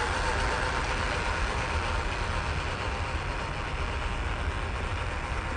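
WPL B16 RC truck's electric motor and gearbox whining steadily as it hauls a loaded trailer, the whine fading as the truck drives off, over a steady low rumble.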